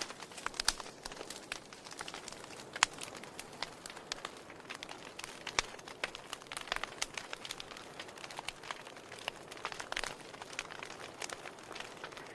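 Wood fire in a fireplace crackling: irregular sharp pops and snaps of burning firewood over a soft hiss, with one louder pop about three seconds in.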